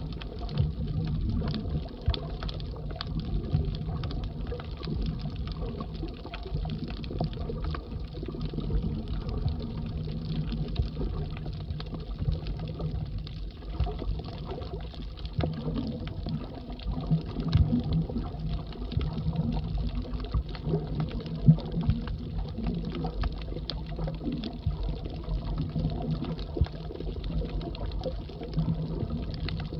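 Muffled underwater sound picked up by a camera below the surface: a steady low rumble of moving water with many faint scattered clicks and crackles.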